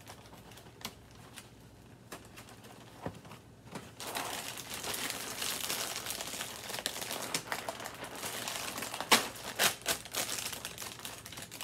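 A cardboard cereal box is handled and opened, giving a few faint ticks and taps. From about four seconds in, its clear plastic inner bag crinkles loudly as it is pulled out and torn open, with several sharp snaps late on.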